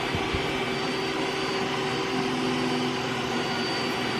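iRobot Roomba s9+ robot vacuum running steadily, its suction motor and brushes giving an even hum with a thin high whine over it.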